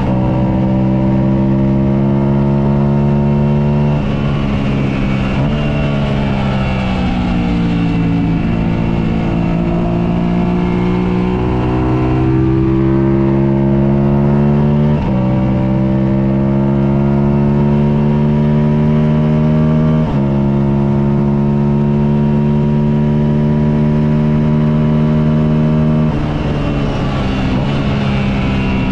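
Motorcycle engine heard onboard at race-track speed, running hard under load throughout. Its pitch glides slowly as it accelerates and slows, and jumps abruptly at several gear changes.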